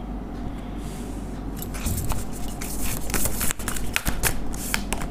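A deck of tarot cards being shuffled and handled by hand: a quick run of card snaps and flicks starting about a second and a half in, over a low steady hum.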